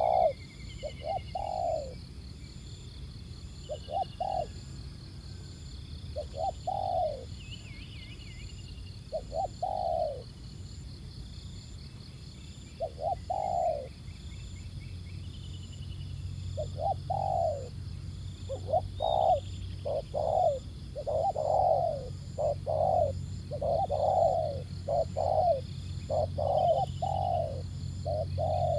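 Spotted doves cooing: spaced coo phrases at first, then from about halfway through a quick, overlapping back-and-forth of coos as the decoy dove and a wild dove answer each other.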